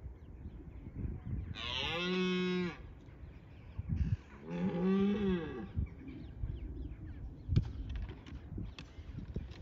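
Red deer stag roaring in the rut, two long roars about three seconds apart, the second slightly rising and then falling in pitch. The roar is a rutting stag's first line of defence of his harem against a rival.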